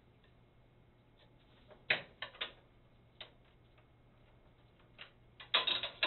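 Sharp metallic clicks and clinks from the master link of a pinsetter elevator roller chain being worked loose by hand: a few quick clicks about two seconds in, a single click about a second later, and a rapid cluster near the end.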